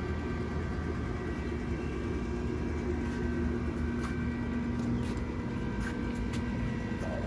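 Pellet smoker's combustion fan running with a steady hum and rush of air while the freshly lit smoker heats up.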